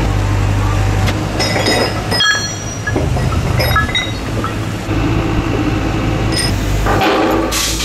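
Steel parts clinking and clanking with short ringing tones, over the steady low running of a truck engine driving a loading crane.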